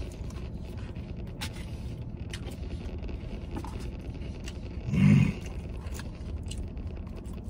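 Chewing, with faint clicks and scrapes of a plastic fork in a paper fries tray, over a steady low rumble inside a truck cab. About five seconds in, a short hummed vocal sound from the eater.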